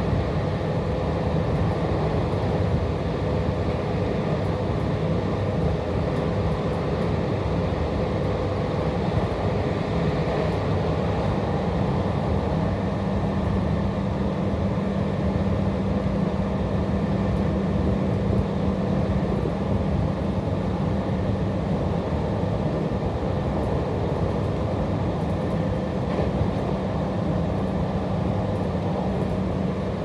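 JR Hokkaido 721 series electric train heard from inside the carriage, running steadily at speed: an even rumble of wheels on rail with a steady low hum underneath.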